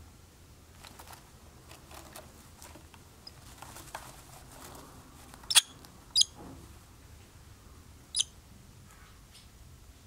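Swallows at a nest calling: short, high, squeaky chirps, with three loud ones in the second half over faint twittering and soft clicks.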